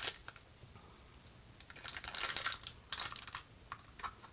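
Light clicking and rustling of small plastic items being handled, in a cluster starting about a second and a half in, with a few more taps near the end.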